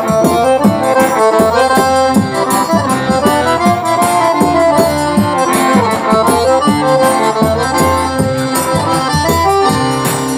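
Live forró band with the accordion playing an instrumental melody over a steady beat, with no singing.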